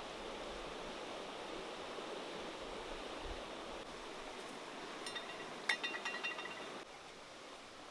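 Steady rushing of a flowing river, with a short run of sharp, ringing clinks of hard utensils being handled about five to six seconds in.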